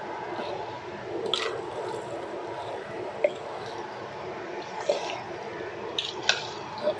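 Metal ladle stirring raw lamb cubes through thick curry paste in a large aluminium pot: a steady wet squishing, with a few sharp clicks of the ladle against the pot in the second half.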